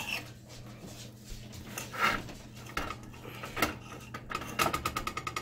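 Knife sawing through baked naan pizza crust and scraping on a stone pizza baking sheet: scattered scrapes, then a fast run of short rasping strokes near the end.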